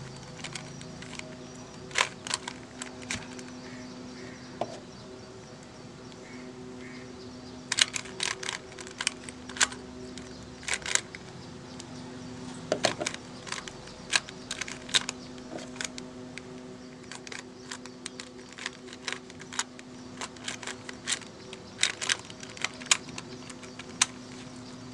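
Plastic clicking of a 3x3 Rubik's cube being turned by hand, in irregular clusters of sharp clicks, over a steady low hum.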